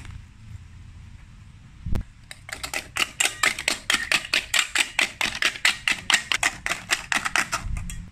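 Spring coil whisk beating a raw egg in a stainless steel bowl, the metal coil clattering against the bowl about five times a second. The beating starts just after a single knock about two seconds in and stops shortly before the end.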